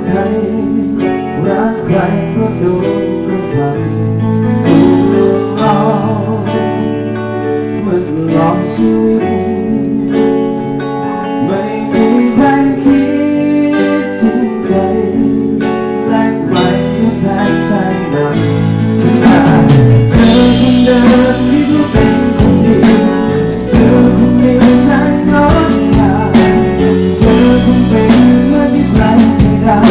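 Thai band music with guitar, played through outdoor PA speakers during a sound check. About two-thirds of the way in it gets louder and fuller, with a driving beat.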